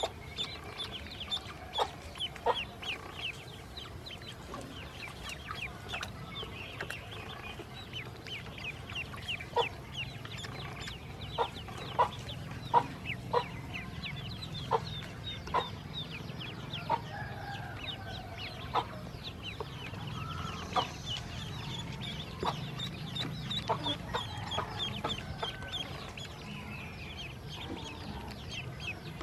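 Ducklings peeping continuously: a rapid chatter of high-pitched peeps, with louder short calls now and then, most of them around the middle.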